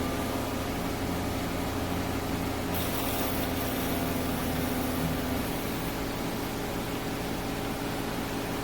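A steady mechanical hum with several fixed low tones, its lowest part dropping away about five seconds in, with a brief hiss about three seconds in.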